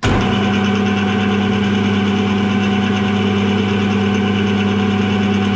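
Metal lathe running steadily while boring out a brass bush, a loud even machine hum with a strong low tone.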